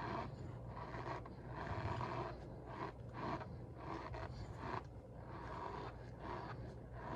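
Cornstarch being squeezed and pressed by hand, crunching and squeaking in a string of short, irregular strokes.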